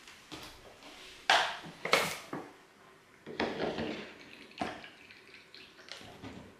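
Water poured from a plastic bottle into a small ceramic bowl for about a second, about halfway through, followed by a click. Two sharp knocks, the loudest sounds, come before the pouring.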